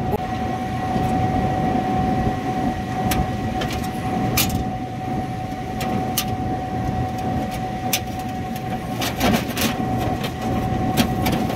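Steady machinery hum with a constant whine, and scattered light clicks and taps as a hand works the seized evaporator fan's aluminium blade and metal shroud.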